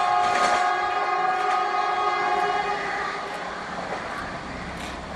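Vande Bharat electric train sounding its horn, a steady chord of several notes that fades out about two and a half seconds in, over the train's running noise as it approaches.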